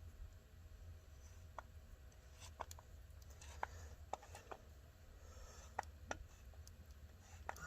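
Scattered faint clicks and light metallic ticks from working the chain tensioner and parts of a Farmertec G372XP chainsaw by hand, about a dozen at irregular intervals, over a low steady hum.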